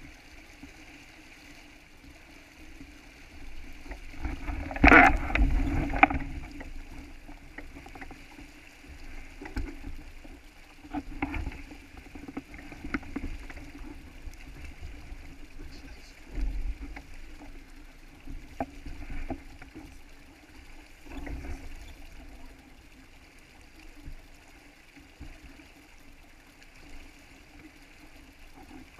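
Water rushing and splashing along a sailboat's hull under way, with occasional knocks and thumps, the loudest about five seconds in.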